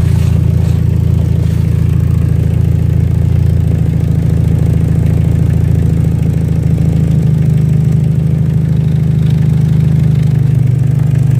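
Dodge Neon's four-cylinder engine idling steadily, heard from under the car by the exhaust. This is its first run with the newly welded-in high-flow catalytic converter and without the earlier exhaust leak. Its pitch steps up a little about seven seconds in.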